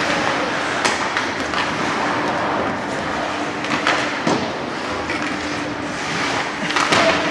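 Ice hockey play: skates scraping across the ice and several sharp clacks of sticks and puck, over a steady hum of rink noise.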